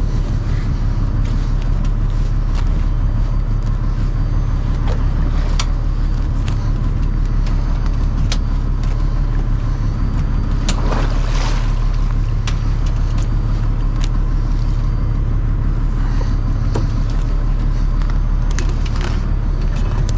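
A fishing boat's engine running steadily as a loud, even low drone, with scattered light clicks and knocks and a short rush of noise about eleven seconds in.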